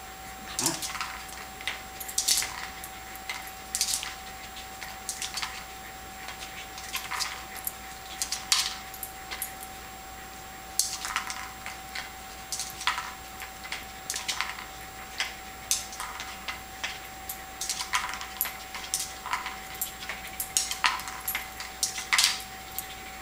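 Kong Wobbler, a hollow hard-plastic treat toy, being nosed and tipped over by a Shetland sheepdog. It clatters and rocks with a treat rattling inside, in irregular clicks and knocks.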